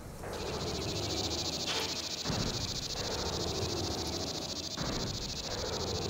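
Steady, high-pitched insect chorus trilling over a low rumble.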